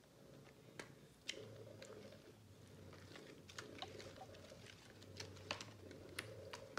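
Faint wet squishing and irregular clicking of a hand kneading shampoo slime, thickened with tapioca starch, in a plastic tub.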